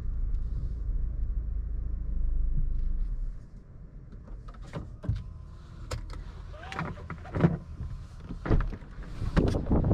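Low road and drivetrain rumble inside a 2022 Lexus NX 350's cabin that dies away about three seconds in as the car stops. A series of sharp clicks and knocks follows.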